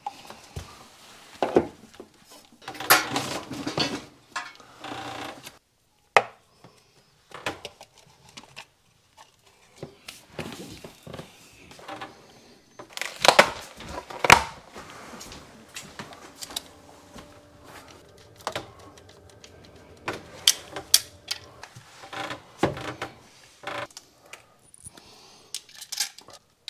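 Irregular clicks, taps and light clatter of hand tools and plastic electrical accessories being handled during wiring work, with a stretch of rustling and scraping a few seconds in and a quick run of louder knocks about halfway through.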